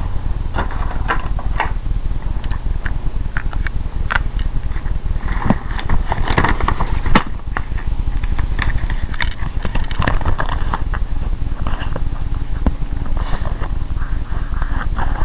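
Handling noise of a handheld camera being moved and fumbled: irregular rubbing, scraping and clicks over a steady low rumble.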